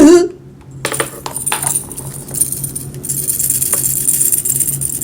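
A small bell being shaken, jingling and jangling steadily. It starts about a second in and is used as a feeding call.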